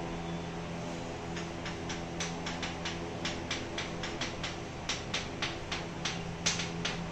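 Chalk tapping and scratching on a blackboard as an equation is written: an irregular run of short, sharp ticks that begins over a second in, heard over a steady low hum.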